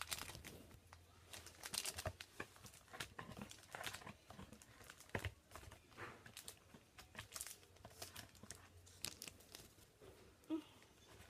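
Trading-card pack wrappers crinkling and tearing as packs are opened and the cards handled: a run of faint, irregular crackles and rustles.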